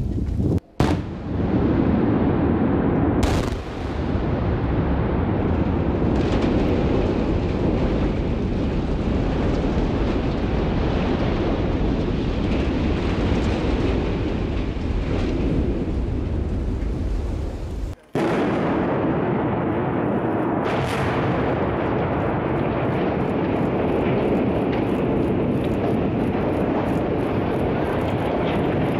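Explosive demolition of large domed buildings: sharp blasts about three seconds in and again about 21 seconds in, over a continuous heavy rumble of the structures collapsing.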